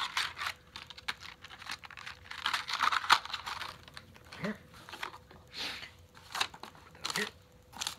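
Clear plastic clamshell packaging being handled and crinkled, with scattered clicks and taps. A longer crinkling rustle comes about two and a half to three seconds in.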